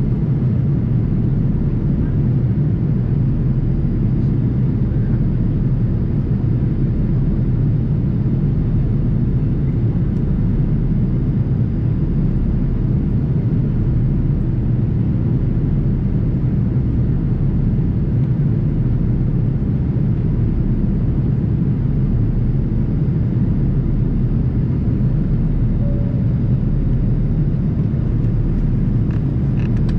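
Steady low drone of a jet airliner in flight, engine and airflow noise heard inside the passenger cabin.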